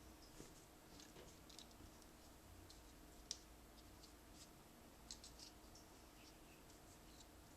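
Near silence: faint steady room hum with a few scattered light clicks, one sharper about three seconds in and a short cluster a little after five seconds.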